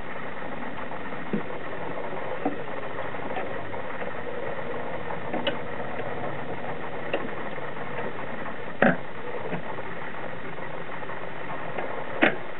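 Telefunken TW 509 record changer running through its automatic return cycle after tripping at the end of the record: a steady mechanical running sound with scattered clicks as the tonearm lifts and swings back to its rest. The loudest clunks come about nine seconds in and near the end.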